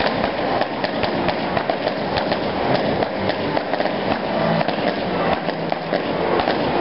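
Firecrackers set off on the ground, crackling in a rapid, dense, unbroken stream of small pops.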